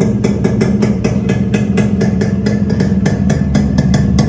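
Yamaha RX100's two-stroke single-cylinder engine idling steadily through a silencer modified with a welded-in length of pipe, its exhaust note pulsing about six times a second. The owner likens this modified exhaust sound to a chamber silencer.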